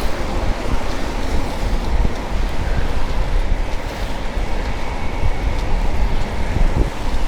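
Steady rumble and rush of a moving vehicle, with wind buffeting the microphone.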